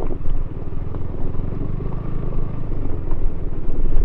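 KTM Duke 200's single-cylinder engine running at steady throttle while riding over a rough dirt trail, its rapid firing pulses heard throughout, with a few small knocks from the bumpy ground.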